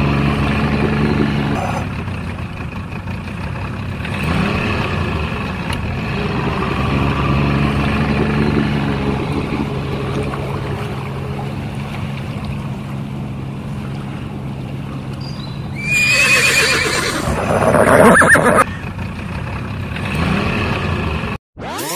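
A vehicle engine drone, steady with a low hum. About sixteen seconds in, a louder, shrill sound rises over it for about two and a half seconds.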